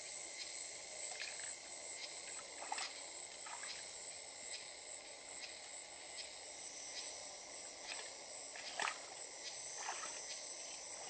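Steady high-pitched drone of forest insects, with a few short splashes and scuffs of bare feet wading through a shallow, rocky stream.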